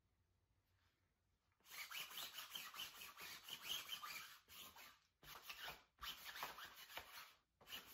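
Sticky lint roller rolled over the uniform tunic's fabric: a crackling rasp in several strokes with short breaks between them, starting about one and a half seconds in.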